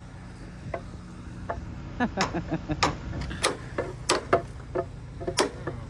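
Irregular sharp metallic clicks and knocks of tools working on metal, about a dozen spread unevenly through the span, over a low steady hum.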